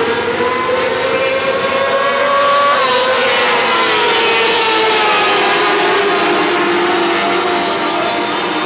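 Several micro sprint cars with 600cc engines running hard together, their pitch rising for about three seconds and then dropping away.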